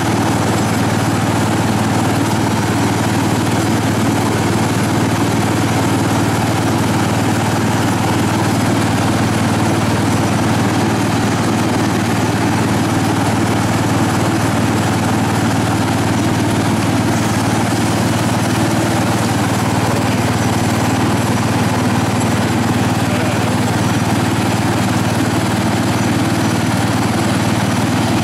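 International Harvester Cub Cadet garden tractor's engine running steadily at an even speed.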